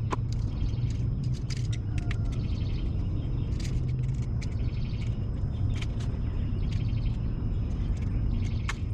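Outdoor ambience: birds chirping in short calls and quick trills over a steady low rumble.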